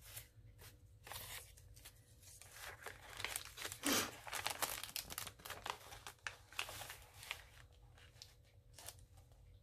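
Paper pages of a handmade junk journal rustling and crinkling as they are handled and turned, in irregular crackles, loudest about four seconds in.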